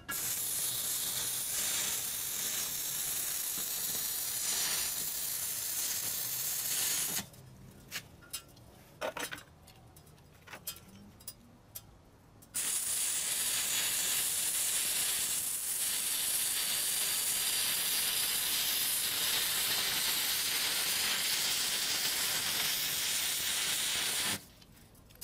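Stick-welding arc crackling and hissing as a bead is laid on a steel bar, fed by a homemade single-transistor inverter welder. The arc burns for about seven seconds, stops for about five seconds with a few light clicks, then strikes again and burns steadily for about twelve seconds before cutting off near the end.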